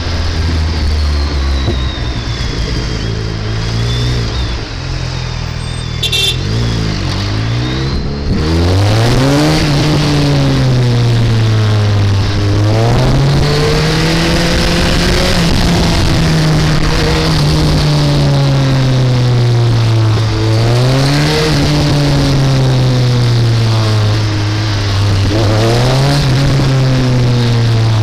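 Motorcycle engine running at low, steady revs for the first several seconds, then revving up and easing off again and again as it rides in traffic, over the rush of wind noise on the microphone.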